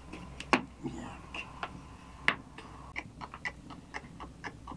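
Light wooden clicks and knocks as small cut wooden blocks are set down and stacked on one another, mixed with the crackle of a wood fire burning under an iron griddle. The clicks are irregular, with a couple of sharp ones early and a quicker run of lighter ones in the second half.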